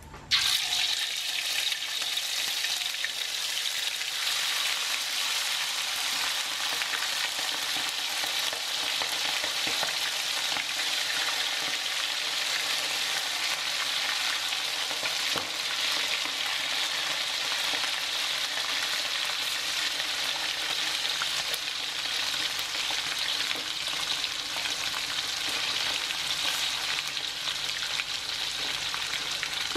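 Pieces of spice-coated tripe frying in hot oil in a wok: a steady sizzle with scattered small pops.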